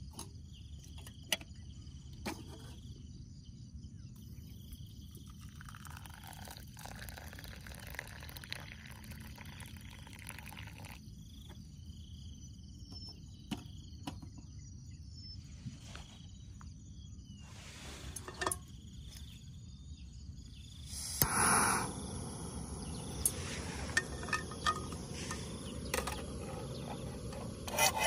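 Water poured from a small camping kettle into a steel cup, over the steady hiss of a portable gas canister stove. About three-quarters of the way through comes a brief loud rush, after which the steady noise is louder.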